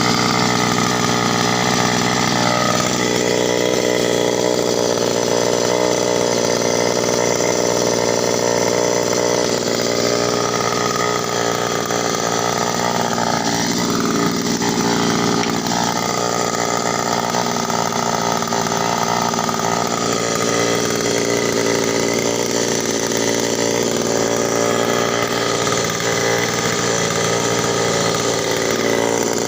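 82cc two-stroke earth auger engine running hard, its pitch dipping and recovering several times.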